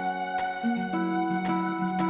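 Background music: a keyboard, like an electric piano, plays sustained chords and a slow melody, with notes struck about every half second.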